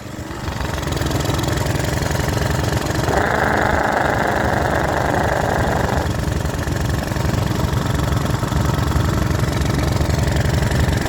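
Small pressure washer gas engine running rough after a restart, on fuel laced with automatic transmission fluid, with a knock that sounds like a rod knock. It climbs in level over the first second, and a steady hiss joins for about three seconds a few seconds in.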